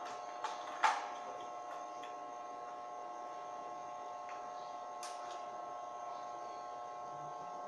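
Steady electrical hum, typical of an arc-welding machine switched on and idling, with two sharp knocks in the first second as pieces of wood and cardboard are set down on the steel grille.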